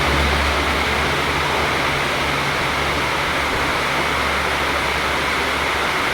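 Heavy rain hissing steadily, with the low hum of a passing train under it that fades out near the end.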